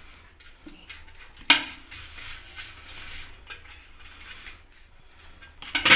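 Hands pressing spice masala into slit green chillies over a steel plate: faint handling and rubbing sounds. There is one sharp clink on the plate about one and a half seconds in, and a few more clinks near the end.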